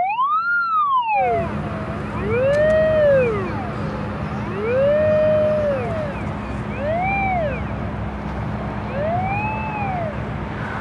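Sewerin UT 9000 pipe locator's audio signal tone gliding up and down in pitch as the receiver is swept over an actively energized line, the tone following the field strength. A quick sweep is followed by about four slower rising-and-falling arches. A steady low hum runs underneath.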